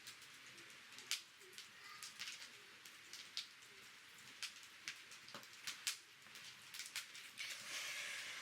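Wood campfire crackling with irregular sharp pops and snaps, and a brief swell of hissing near the end.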